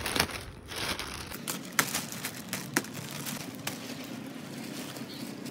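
Clear plastic wrapping crinkling and rustling as it is cut open and pulled off a new kayak, with irregular crackles and a few sharp snaps, the loudest near the start, about two seconds in and a second later.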